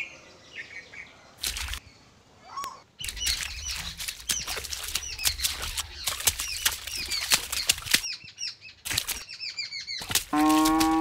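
Many small birds chirping fast, with clicks and flutters, starting about three seconds in. Near the end a loud, cow-like moo with a falling pitch comes in over the chirping.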